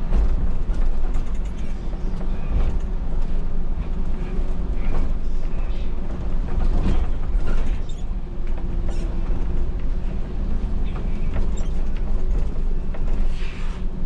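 Inside a MAN NL283 Lion's City city bus under way, heard from the driver's cab: a steady low rumble of the diesel engine and road, with frequent short creaks and rattles from the bodywork and cab fittings.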